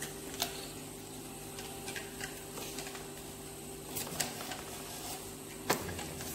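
Handling of a wireless handheld microphone as its handle is twisted and worked open by hand: a few sharp plastic clicks and taps, the loudest near the end, over a steady low hum.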